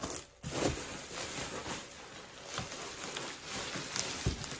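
Bubble wrap crinkling and rustling as it is handled and pulled out of a cardboard box, with a few soft knocks against the box.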